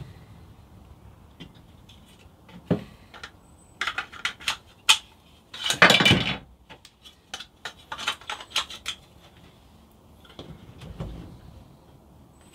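3D-printed plastic tool holders and their fittings being handled, with scattered light clicks and clatters as the hard pieces knock together. The loudest is a longer rustling scrape about halfway through.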